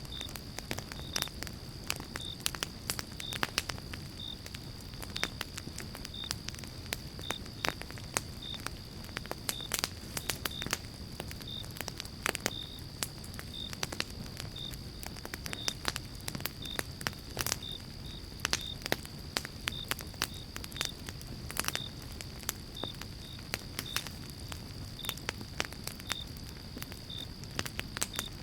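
Wood fire crackling in a fireplace: irregular sharp pops and snaps, several a second, over a low rumble of the flames. A faint steady high tone runs underneath.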